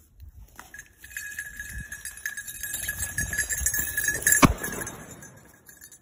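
Footsteps swishing through dry grass, with a small bell ringing steadily over them. A single sharp crack about four and a half seconds in cuts the ringing off.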